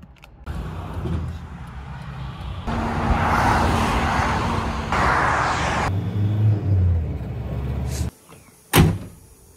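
Vehicle noise around a roadside breakdown recovery: motorway traffic and the recovery truck running, changing abruptly a few times, with a single sharp knock near the end.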